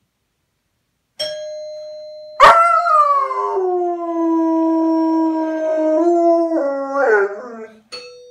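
A doorbell chimes about a second in, and a German Shepherd answers with one long howl that starts loud and high, settles to a steady pitch and wavers near the end. As the howl stops, the doorbell chimes again.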